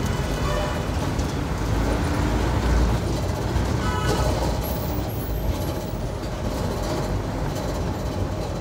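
Kerala State RTC bus running along the highway, heard from on board: a steady, heavy engine and road rumble. A brief pitched sound comes about four seconds in.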